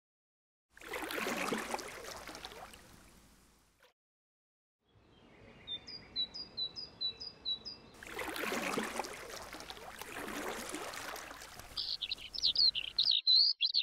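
Wooden canoe paddle strokes pulling through river water, two long rushes of water about a second in and again about eight seconds in. Songbirds call over it: a quick run of about eight repeated chirps in the middle, and a warbling song near the end.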